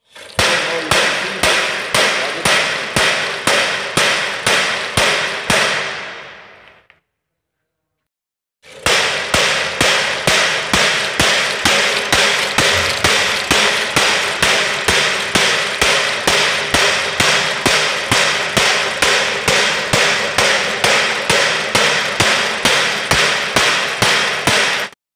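Cam-driven ball peen hammer of a motorised hammering machine striking a steel anvil block over and over, sharp metallic blows at about two to three a second. The first run fades out about six seconds in; after a short silence the hammering starts again and keeps an even beat until it cuts off near the end.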